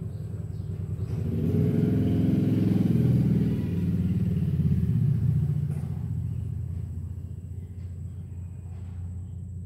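A motor vehicle's engine running, swelling about a second in and fading away after about six seconds, as it passes by.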